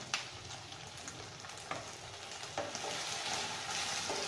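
Soya chunks in chilli sauce sizzling in a nonstick wok as they are stirred with a spatula, with a few light clicks of the spatula against the pan. A little water has just gone into the hot pan, and the sizzle grows louder about two-thirds of the way through.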